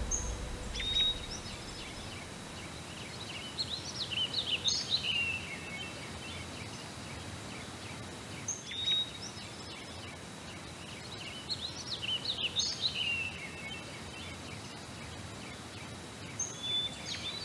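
A songbird singing short phrases of quick, high, sweeping notes about five times, every few seconds, over a steady outdoor background hiss.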